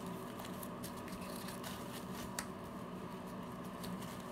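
Scattered small clicks and taps of a plastic contact lens case being handled, one sharper click about two and a half seconds in, over a steady low hum.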